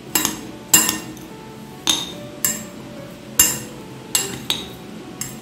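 A metal spoon mixing a sprouted moong salad in a bowl, clinking against the bowl about eight times at irregular intervals.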